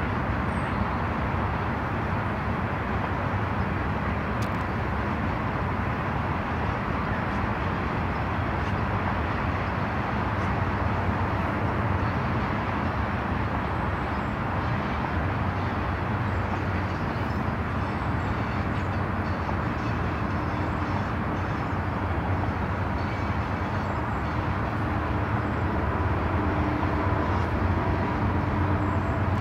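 Steady rumble of outdoor traffic noise, with an engine hum growing slightly louder near the end.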